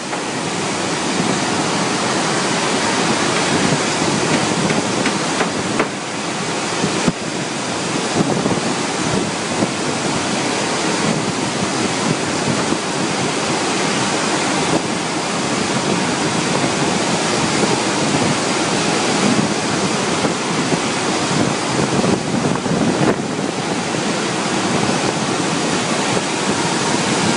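Welding arc hissing and crackling steadily, with a few sharp pops.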